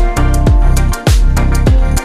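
Background music with a steady beat: deep kick-drum hits that fall in pitch, a few each second, under a busy mix of instruments.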